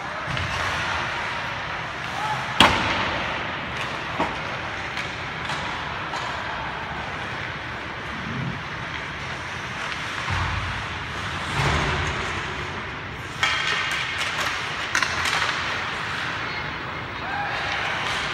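Ice hockey play on a rink: skate blades scraping on the ice and sharp knocks of puck and sticks against the boards. The loudest is a single crack about two and a half seconds in, with further knocks near the middle and later on. Faint voices of players can be heard.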